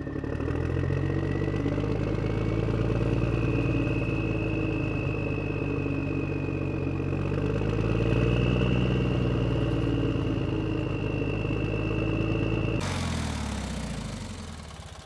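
Small electric motor of a homemade toy tractor running as it drives across sand: a steady high whine that rises slightly in pitch over a low rumble. About three seconds before the end it turns to a rougher noise and fades out.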